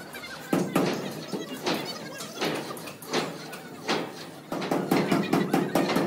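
A long steel beam being slid over steel rails, clanking and scraping irregularly with short metallic ringing after the louder knocks.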